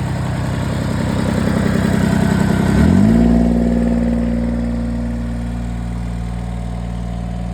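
John Deere 332 garden tractor's three-cylinder diesel engine running at a rough, pulsing idle, then picking up speed sharply about three seconds in and holding steady at the higher speed.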